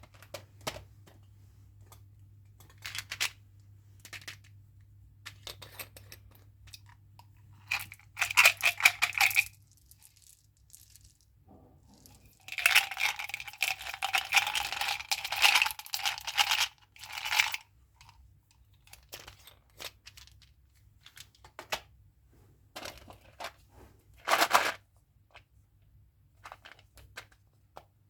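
Chewing gum packaging being handled and torn open: scattered short clicks and rustles, with longer bouts of tearing and crinkling about a third of the way in and again around the middle.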